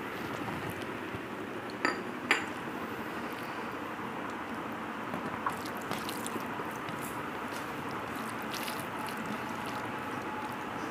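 Fish curry poured from a ceramic bowl onto rice on a steel plate. The bowl clinks sharply against the plate twice about two seconds in, then soft squishing and faint clicks follow as a hand mixes the rice and curry, over a steady background hiss.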